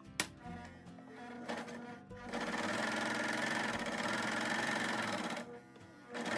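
Four-thread serger (overlock machine) stitching a test run on fabric after its upper looper tension has been tightened. It starts about two seconds in, runs steadily at high speed for about three seconds, then stops.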